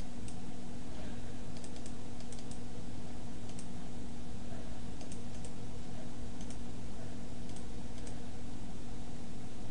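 A dozen or so light clicks of a computer mouse and keyboard, scattered and some in quick pairs, over a steady low hum and hiss.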